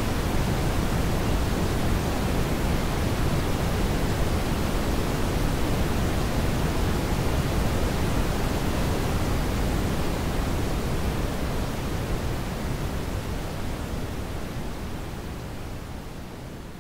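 Brown noise: a steady, even rushing hiss, heavier in the low end than white noise. It fades out gradually over the second half.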